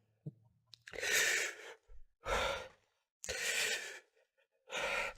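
A man's heavy, sighing breaths, four in a row about a second apart, as he fights back tears.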